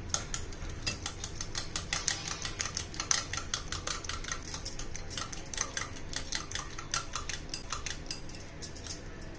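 Steel wire whisk beating raw eggs in a glass bowl: a quick, steady run of clicks as the wires strike the glass, with the wet slap of the egg mixture.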